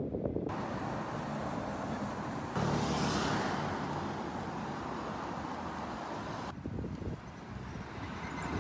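Outdoor ambient noise while walking on a road: a steady rush, like street traffic and wind on the microphone, that jumps louder about two and a half seconds in and cuts off abruptly near the end, leaving a quieter stretch.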